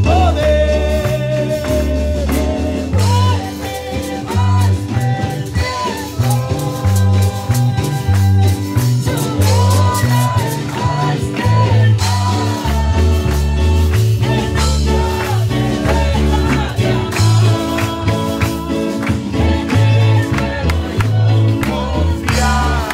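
Live Pentecostal praise chorus: a woman singing into a microphone over a band of electric bass, drum kit and guitar, with a steady pulsing bass line and the congregation clapping along.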